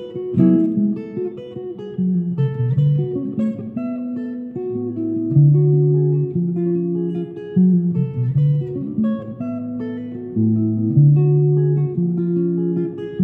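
Headless electric guitar played solo: a flowing picked line of single notes and chord shapes over ringing low bass notes, with the notes changing several times a second.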